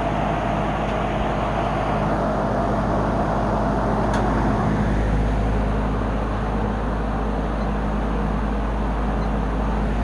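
Lakewood Deluxe window box fan running on high in reverse (exhaust) mode: a steady rush of air over a low motor hum.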